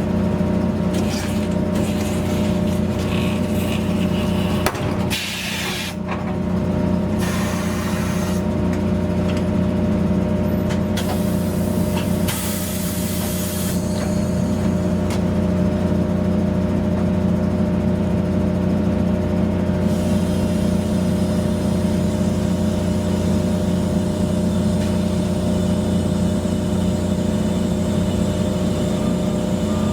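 A steady mechanical hum runs throughout, with several short bursts of compressed-air hiss about 5, 7, 11 and 12 seconds in, as in tire-shop air tools and inflation.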